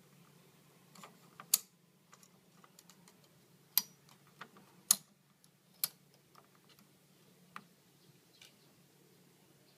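Hard plastic building-brick parts of a toy boat model clicking and knocking as its cannon piece is handled and fitted: a handful of sharp, irregular clicks, the loudest about one and a half, four and five seconds in.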